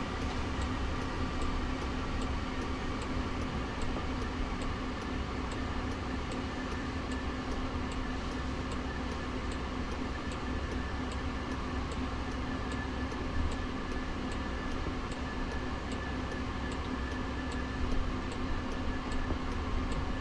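Car turn-signal indicator ticking steadily, about one and a half ticks a second, over the steady hum of a stopped electric Jaguar I-Pace's cabin.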